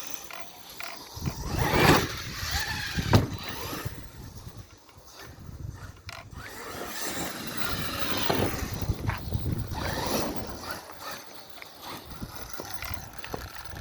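Arrma Krajave 1/8-scale RC truck on a 6S battery driven hard. Its Kraton 8S brushless motor and drivetrain whine up and fall away in two long bursts, about a second in and again around the middle, with tyres churning the ground.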